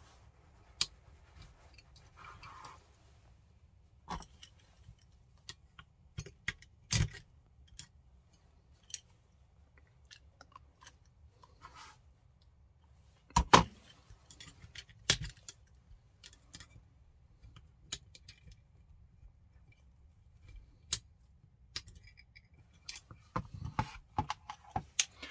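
Small metal parts and a hand tool clicking and tapping against a Wolverine MTW airsoft rifle's lower receiver while a pin and trigger spring are worked into place. The sharp clicks are scattered, with two louder knocks about halfway through and a quick run of clicks near the end.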